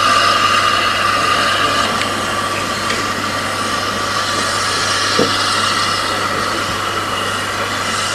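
Steady mechanical running noise with a constant low hum and a high whine, and a faint knock about five seconds in.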